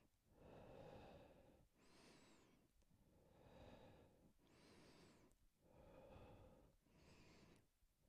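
Faint, steady breathing of a man exercising, breaths in and out alternating about once a second, some with a thin high whistle.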